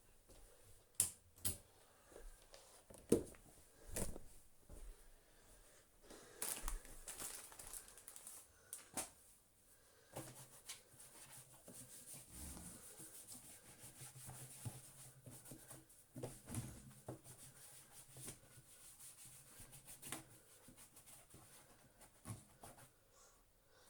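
Faint handling sounds: scattered clicks and knocks with soft rustling and rubbing, as of small parts and objects being handled.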